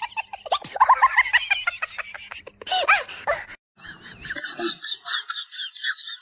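Rapid, high-pitched laughter-like chattering, a comic sound effect, that cuts off abruptly about three and a half seconds in. A fainter, busier jumble of short tones and noise follows.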